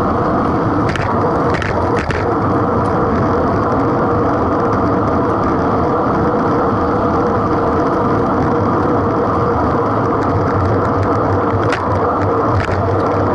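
Steady rush of wind and tyre-on-road noise picked up by a camera mounted on a moving road bike, with a few sharp clicks about a second in, around two seconds in and twice near the end.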